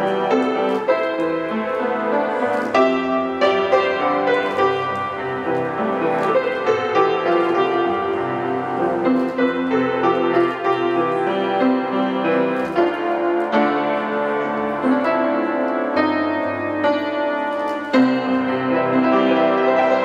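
Solo grand piano being played: a continuous stream of struck notes over held chords.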